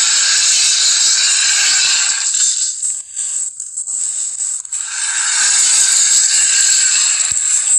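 Monster-movie creature sound effect: a long, loud rattling hiss, heard twice with a short, weaker break between.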